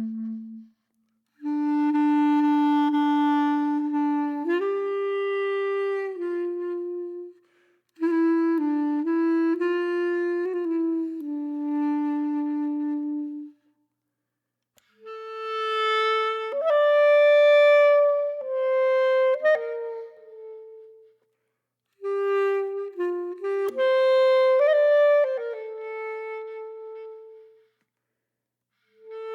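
Background music: a solo woodwind plays a slow melody of long held notes, in phrases of about five seconds with short pauses between them.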